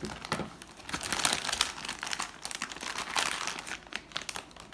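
Packaging being handled and unwrapped during an unboxing, a dense run of irregular crinkling and crackling that thins out near the end.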